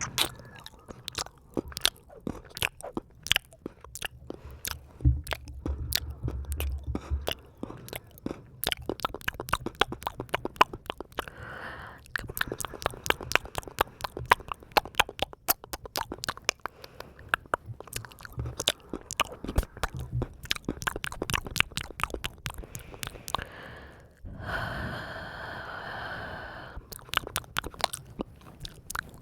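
Close-miked ASMR wet and dry mouth sounds: rapid tongue and lip clicks and smacks, many a second. Near the end a steady pitched sound lasts about two and a half seconds.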